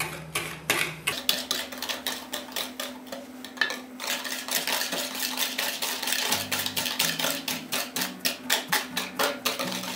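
A wire whisk beating eggs and sugar in a glass bowl: quick, regular clicks of the metal whisk against the glass as the mixture turns smooth.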